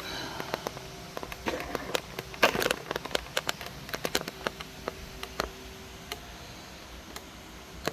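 Irregular clicks, taps and rustling from handling things by hand, busiest about two and a half seconds in and thinning out near the end.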